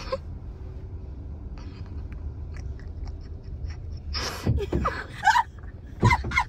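Steady low rumble of a moving car's cabin, with faint clicks and a few short wordless vocal sounds about four and six seconds in.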